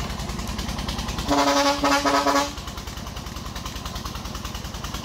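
Single-cylinder diesel engine of a công nông farm truck running steadily while pulling a load up a slope. A little over a second in, a vehicle horn sounds two short honks back to back, the loudest sound here.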